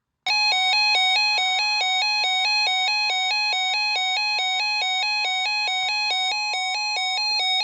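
Weather-radio alert alarm: an electronic two-pitch beeping that alternates several times a second, over a steady tone near 1 kHz, the kind used as the weather-radio warning alert tone, which cuts off shortly before the end.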